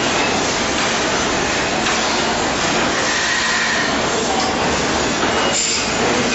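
Steady factory-floor noise: an even, continuous rush of machinery and cooling fans.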